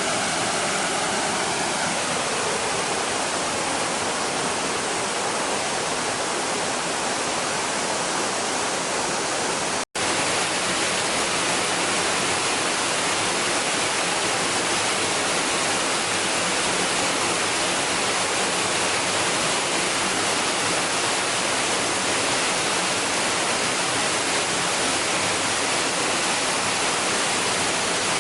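Waterfall pouring: a steady, dense rush of falling water. In the first two seconds a faint droning tone slides down in pitch and fades out, and about ten seconds in the sound cuts out for a split second.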